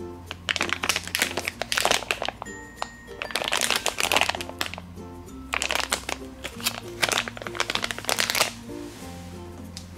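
Crinkling of a glossy plastic squishy package as it is handled and turned over in the hands, in repeated bursts, over background music.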